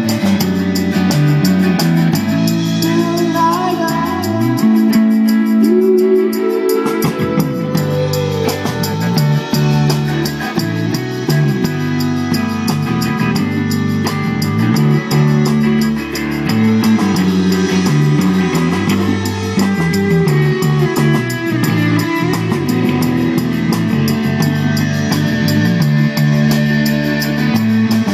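Rock band playing: electric guitars over a drum kit with a steady cymbal beat. The low notes drop out for a couple of seconds about five seconds in while a guitar slides upward, then the full band comes back.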